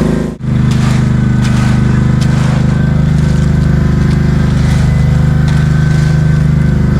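A heavy engine running steadily at a constant speed, with a brief dropout about half a second in.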